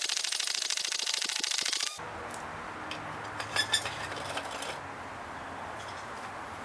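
Forge fire crackling fast and densely, cut off abruptly about two seconds in. Then a quieter outdoor background with a few light clicks and a short high tone.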